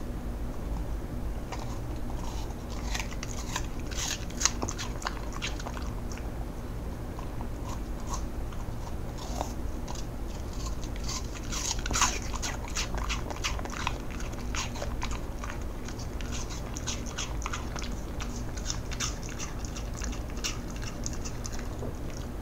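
Cocker spaniel biting and chewing crisp apple, a quick run of wet crunches, with the loudest bites about four and twelve seconds in.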